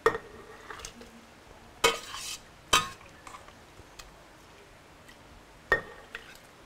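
A metal ladle knocking and clinking against a stainless steel pot and a glass jar while cooked sun-dried tomatoes and their liquid are scooped into the jar. There are four sharp knocks, each with a brief ring, and fainter clinks between them.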